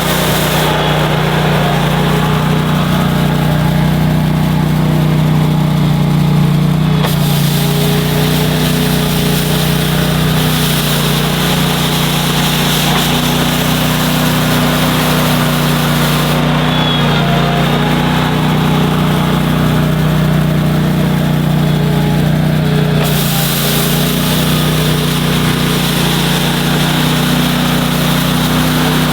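Boss SR Mag's engine running steadily with its rotary broom attachment sweeping snow. Over the engine's steady hum sits a high brushing hiss that drops away twice for several seconds.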